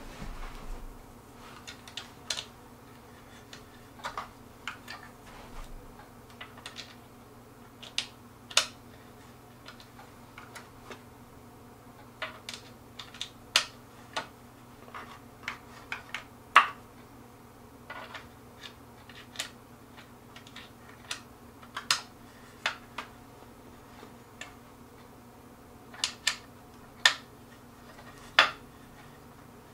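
Irregular sharp clicks and clinks of metal hardware as bolts are hand-tightened into a wooden table frame, over a steady low hum.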